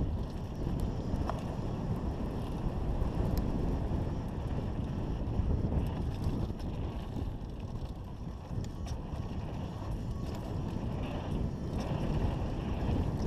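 Wind rushing over a helmet camera's microphone as a mountain bike rolls down a dirt trail, its tyres rumbling on the ground, with a few light clicks and rattles from the bike.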